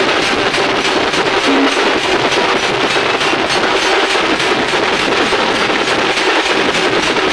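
Singha baja band playing: fast, dense drumming over a steady held tone.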